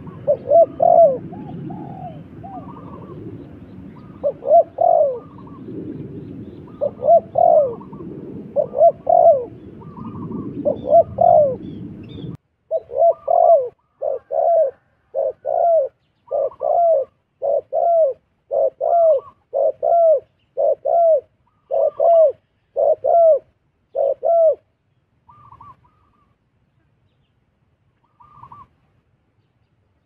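Spotted dove cooing: short coos in irregular clusters over a low background rumble that cuts off abruptly about twelve seconds in, then a fast, even run of coos, about two a second, that tails off to a few faint notes.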